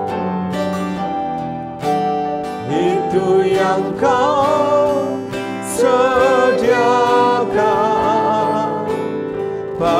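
Indonesian worship song: instrumental accompaniment, then a man's voice singing the melody with vibrato from about three seconds in.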